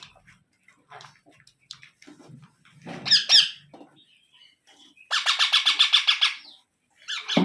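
Indian ringneck parrots squawking at close range: a single loud harsh squawk about three seconds in, then a rapid run of about ten squawks a second for a second and a half, and another burst of calls near the end.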